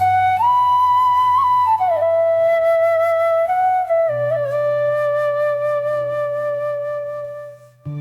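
Background music: a slow flute melody of long held notes over a steady low drone, fading out near the end.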